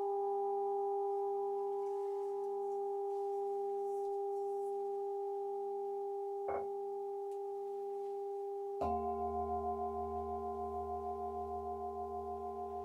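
Metal singing bowls ringing with long, steady overlapping tones that beat in a slow wobble. A light tap sounds about six and a half seconds in, and a fresh strike near nine seconds adds a deeper, louder tone with a pulsing beat.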